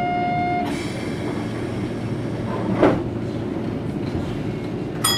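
Cabin of a Toyohashi Railway 3500-series tram standing still, its equipment giving a steady low hum. A short ringing chime sounds at the start and again near the end, and a single sharp knock comes about three seconds in.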